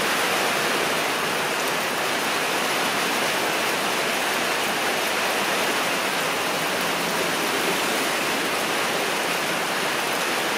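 Steady, even rushing noise of falling water, like a heavy downpour, with no breaks or separate sounds in it.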